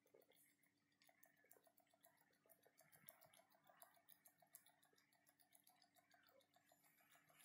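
Very faint bubbling and popping of dry ice sublimating in a glass of water: quick little ticks, several a second, over a faint steady hum.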